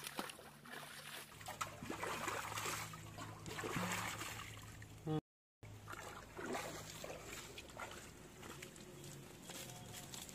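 Faint sloshing and splashing of shallow muddy water as someone wades through it. The sound cuts out briefly about five seconds in.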